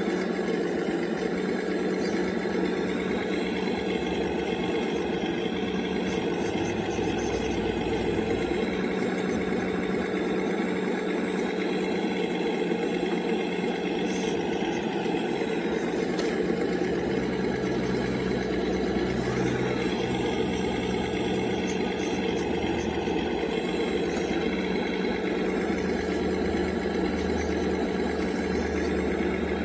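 Hydraulic pump of a radio-controlled long-reach CAT excavator model running steadily as a continuous whine. Its pitch shifts slightly now and then as the boom and arm move under load.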